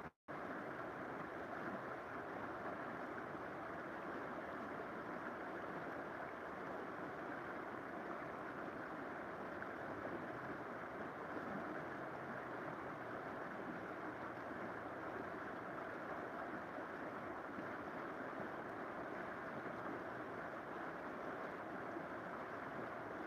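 River water flowing steadily, an even rushing noise, after a split-second dropout at the very start.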